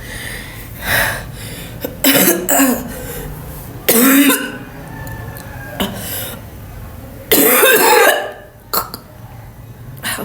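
A woman forcing a series of deliberate coughs, about seven in all, with a longer, loud coughing fit about seven seconds in.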